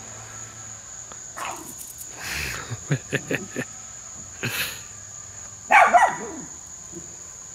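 Dogs playing, with a few short barks spread through and the loudest bark a bit under six seconds in. A steady high insect buzz runs underneath.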